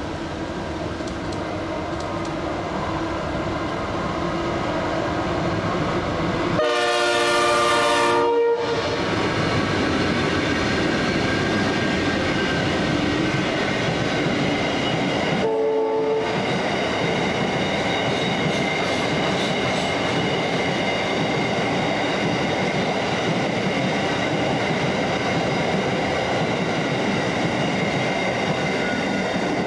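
A diesel freight train passes close by, its empty flat wagons rolling and clattering over the rails with a steady, loud rumble that builds as it arrives. The locomotive sounds its multi-note horn twice: a blast of about two seconds some seven seconds in, and a short toot about sixteen seconds in.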